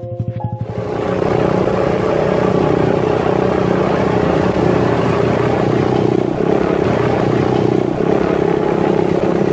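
Dirt bike engine running at a steady speed as the bike rides along, coming in loud about a second in.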